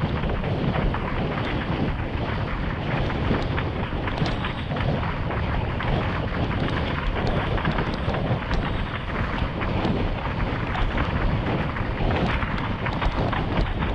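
Heavy wind rumble on the microphone mixed with water rushing and spray under a 115-litre Fanatic Falcon slalom windsurf board planing over choppy water, with constant small slaps of chop against the hull.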